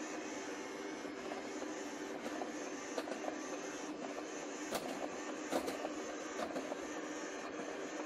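Severin RB 7025 robot vacuum cleaner running as it drives across a hard floor: a steady whirring hum from its suction fan and brushes, with a few sharp clicks about three to six seconds in.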